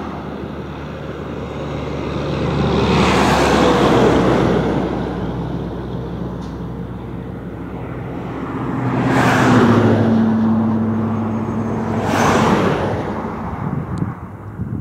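Road traffic passing by: three vehicles go by, about three seconds in, about nine seconds in and about twelve seconds in, each rising and fading away. The second carries an engine note that drops in pitch as it passes.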